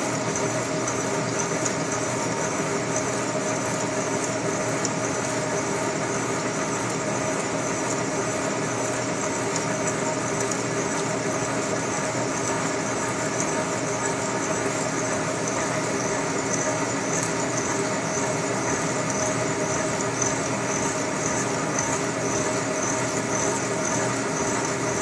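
Boring mill running steadily while its boring bar turns in the welded bore of a Cat 375 excavator H-link, the cutter shaving through built-up weld. The steady machine hum carries several fixed tones and does not change.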